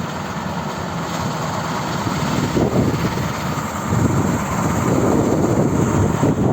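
KAMAZ truck's diesel engine running as the truck drives through a stream, growing louder about four seconds in.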